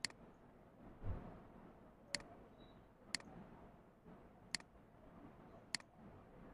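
Faint computer mouse clicks: five single sharp clicks at uneven intervals of one to two seconds, with one soft low thump about a second in.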